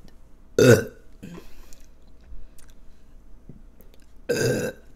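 A woman burps twice: a short burp about half a second in and another near the end.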